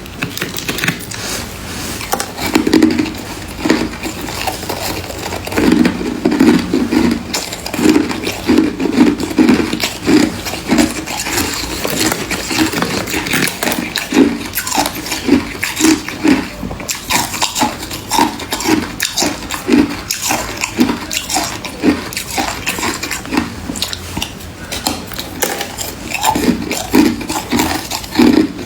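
Close-miked chewing of freezer frost: dense crisp crackling with a run of rhythmic crunching bites.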